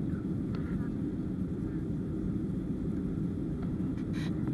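Jet airliner cabin noise in flight: the steady, low-pitched drone of the engines and airflow heard from inside the cabin at a window seat. A short hiss cuts across it about four seconds in.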